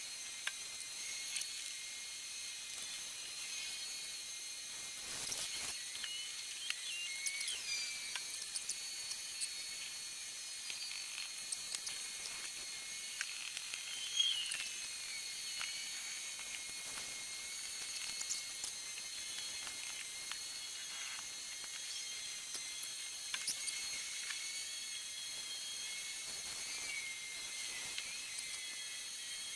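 Masking tape being peeled back by hand from a freshly painted truck roof: faint, irregular crackles and ticks, the sharpest about halfway through. A steady high-pitched whine runs underneath.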